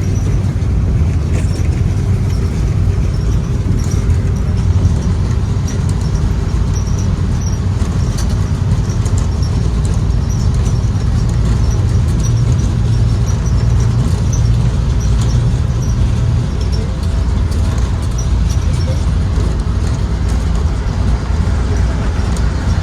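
On-board ride noise of a 2023 Blue Bird Vision school bus: its Ford 7.3L gasoline V8 running with a steady low rumble of engine and road, and faint high rattles scattered through it.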